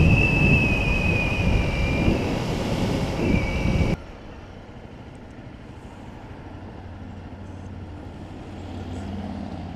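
Motorcycle at highway speed: loud wind rush and engine drone, with a steady high whistle over it for the first two seconds. About four seconds in it cuts abruptly to a much quieter, low steady engine hum as the bike rolls slowly at low speed.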